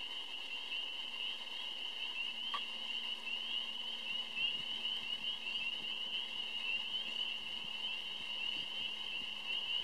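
A dense chorus of spring peepers, many short, rising, high-pitched peeps overlapping into a steady din. A single faint click sounds about two and a half seconds in.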